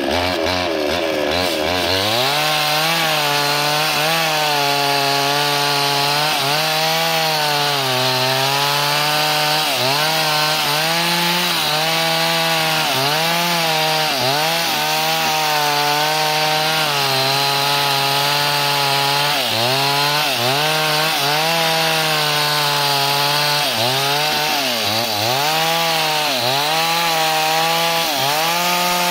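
Two-stroke chainsaw at full throttle cutting lengthwise into the end of a very hard log, its engine pitch dipping again and again as the chain is loaded in the wood and then recovering. It revs up from a low pitch in the first couple of seconds.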